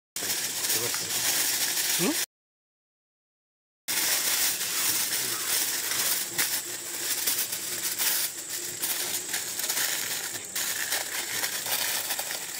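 Aluminium foil crinkling and crackling as it is torn from the roll and crushed and folded tightly around a banana-leaf parcel. The sound cuts out to dead silence for about a second and a half, a little after two seconds in.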